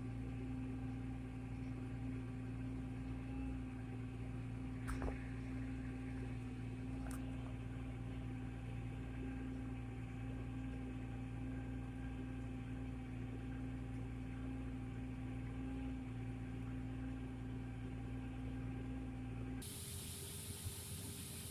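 Steady drone of a large farm machine's engine heard from inside the cab, with two short clicks a few seconds in. Near the end the sound cuts abruptly to a steady hiss.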